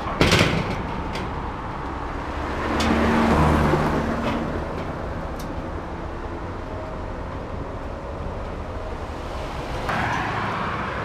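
Corrugated steel sheet gate door being pushed and pulled, with a sharp metal bang just after the start and a few lighter knocks. The door won't swing because its newly welded hinge is jammed. A steady hum of road traffic runs underneath.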